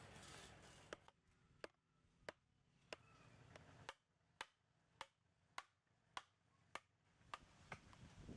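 Upright split-bamboo slats being knocked into the ground with a length of bamboo used as a mallet: a dozen sharp knocks, about two a second, starting about a second in.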